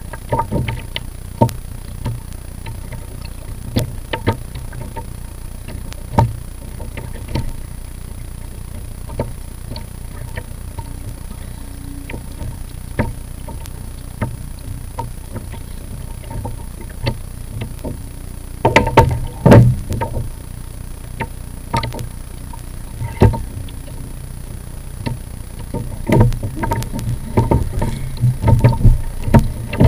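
Small waves lapping and knocking against a plastic kayak hull as it drifts, over a low steady rumble. The knocks come singly and irregularly, bunching into louder clusters about two-thirds through and again near the end.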